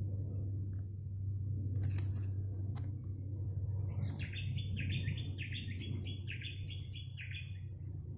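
A bird singing a quick run of about ten short, falling chirps, roughly three a second, starting about four seconds in and lasting some three seconds. Underneath is a steady low hum.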